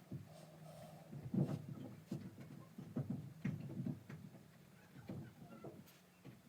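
A series of irregular soft knocks and handling noises, about eight in all, over a low steady hum.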